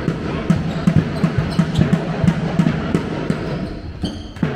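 Handball bouncing on the hard floor of a large sports hall as players dribble, with repeated short thuds and running footsteps on the court.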